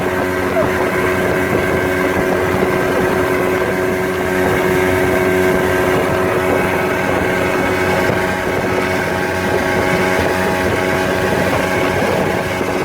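Motorboat engine running at a steady speed: a constant hum that holds one pitch, over a rushing noise.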